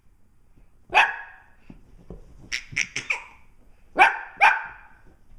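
Dogs barking in short, sharp barks: one, then a quick run of three, then two more near the end.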